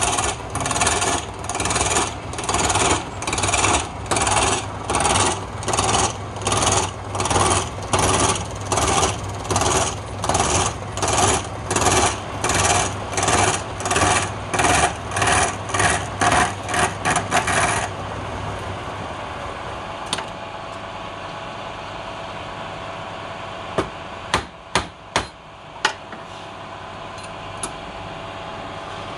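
Wood lathe turning a palm-wood blank, a chisel scraping the spinning wood in loud strokes about twice a second over the lathe motor's hum. The cutting stops about two-thirds of the way through, leaving the motor running, and a few sharp knocks follow.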